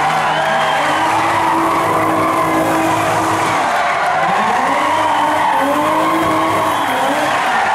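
Classic rally car doing donuts on tarmac: its engine revs up and down again and again over continuous tyre screech.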